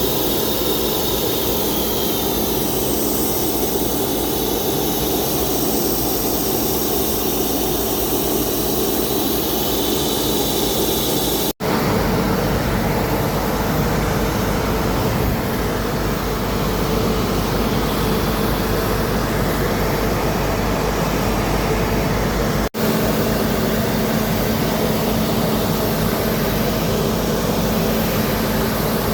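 Aircraft engine running steadily, with two very short dropouts about a third and two thirds of the way through.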